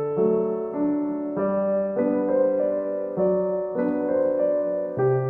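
Background piano music, notes and chords changing every half second to a second.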